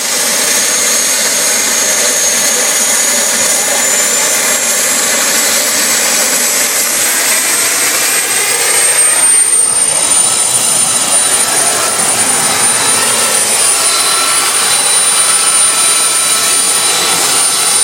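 Homemade jet engine running steadily and loud: a roar under a high turbine whine that climbs slowly in pitch over the first ten seconds or so, then holds.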